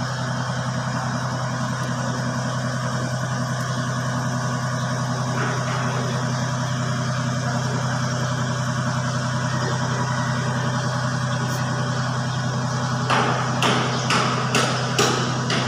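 Steady low machine hum; about 13 seconds in, sharp metal-on-metal hammer taps begin, roughly two a second, as a punch is struck against the torque converter's bolt heads to mark them as tightened.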